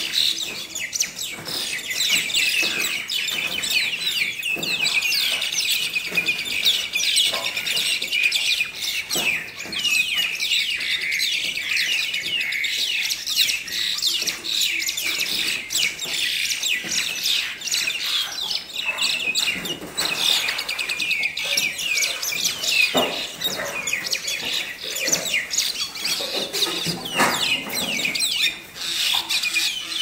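Mynas fighting: a loud, continuous chatter of harsh, overlapping calls from several birds at once.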